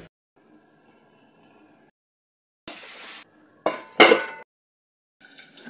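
Green chilli chutney mixture sizzling faintly in a kadai, in short snippets with silent breaks between, then a brief loud scrape and a steel plate set down on the kadai as a lid with a metallic clank that rings briefly, about four seconds in.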